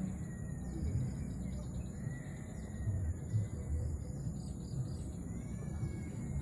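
Outdoor ambience of birds chirping: short quick falling calls repeat throughout, with a thin wavering whistle at times, over a low steady rumble.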